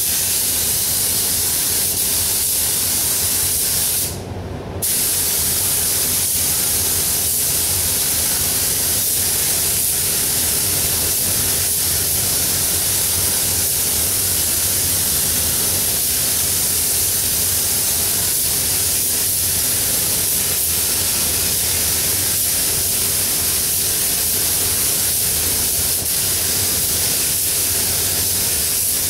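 Gravity-feed paint spray gun hissing steadily as compressed air atomises paint, with the trigger let off briefly about four seconds in.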